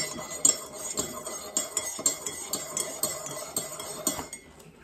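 Metal spoon stirring sugar into coffee in a ceramic mug, clinking against the inside about three times a second and stopping about four seconds in.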